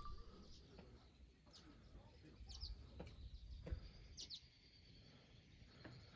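Near silence in open air, with a few faint, short, high bird chirps, about three small groups of them.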